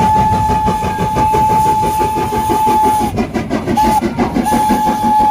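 Steam locomotive whistle blowing one steady note: a long blast of about three seconds, a short toot, then another long blast starting near the end, over the rapid rhythmic beat of the running locomotive.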